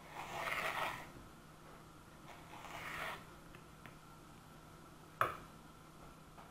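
Kitchen knife cutting through a partly frozen chum salmon fillet on a plastic cutting board: two soft scraping strokes, then one sharp click about five seconds in.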